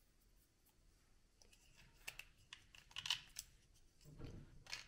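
Faint clicking and rustling of small 3D-printed plastic parts being handled and fitted together, with a cluster of sharper clicks around the middle and a duller knock near the end.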